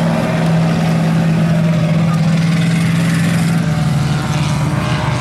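Dirt-track stock car engines running at race speed as the cars lap the oval, a loud steady drone.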